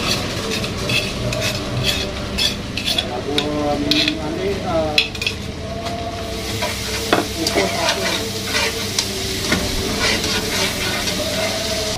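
Ground chili paste frying with shallots and garlic in a non-stick frying pan: oil sizzling while a metal spatula and fork scrape and tap against the pan as it is stirred. The sizzle grows stronger about halfway through.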